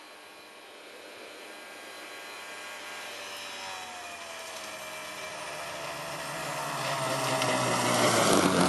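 Arctic Cat snowmobile running as it drives across snow toward the listener, growing steadily louder as it comes close. Its engine note falls slightly as it slows near the end.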